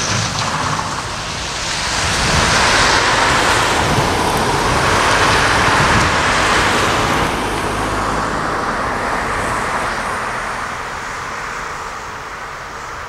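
A road vehicle passing: the noise swells over a few seconds, peaks, then slowly fades away.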